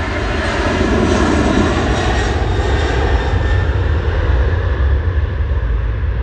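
Jet airliner's engines running at high power as it moves along the runway: a loud, deep rumble with a hiss above it. The hiss dulls near the end as the aircraft draws away.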